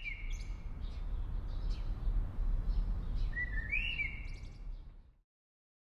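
A songbird calls twice, each call a short rising whistle, with a few fainter high chirps between the calls. Under the birdsong runs a low, steady outdoor rumble, and everything cuts off suddenly about five seconds in.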